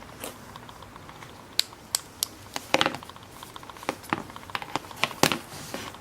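Irregular sharp clicks and light knocks of small hard objects being handled and set down, the loudest a little under three seconds in and again a little after five seconds.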